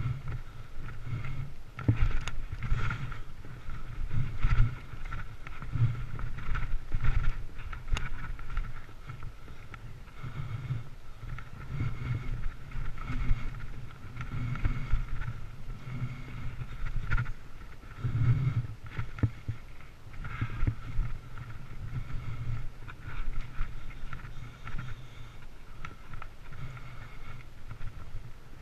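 Mountain bike riding a rough dirt trail, heard from a bike- or rider-mounted camera: a continuous uneven rumble from the tyres and frame over the ground, with a faint steady whine and a few sharp knocks as the bike hits bumps.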